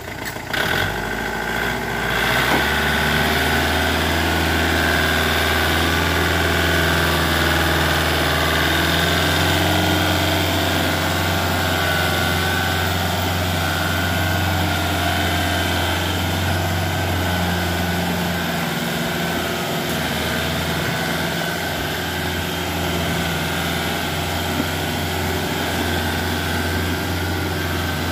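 Kubota L1-285 tractor's diesel engine working hard while pulling a trailer loaded with about ten tons of logs. It comes up to a steady, loud working speed about two seconds in and holds there.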